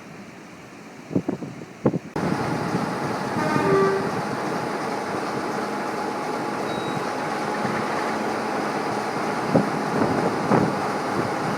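Railway locomotive running steadily, with a short horn toot a little over a second after a sudden cut. Before the cut there is wind noise on the microphone and two sharp knocks.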